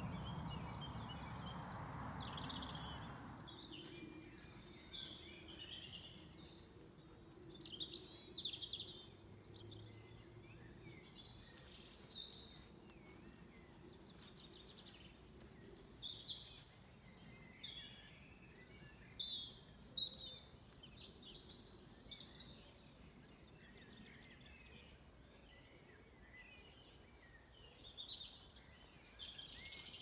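Mixed evening birdsong: several birds singing and calling in short, scattered phrases. A soft low rushing noise fades out in the first few seconds.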